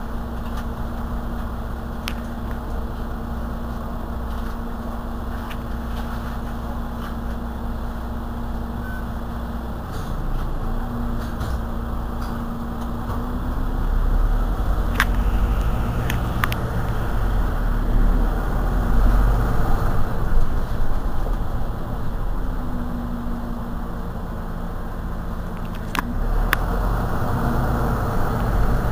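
Mercedes-Benz Citaro C2 city bus idling steadily at a stop, heard from behind. It grows louder about ten seconds in and again near the end, with a few short clicks.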